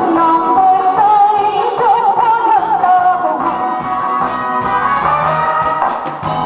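A woman singing into a microphone over instrumental accompaniment, holding a long wavering note about a second in.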